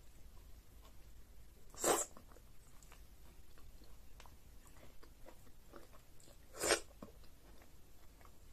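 A person eating egusi soup with fufu by hand: soft chewing and small mouth clicks, with two louder short smacks, about two seconds in and about five seconds later.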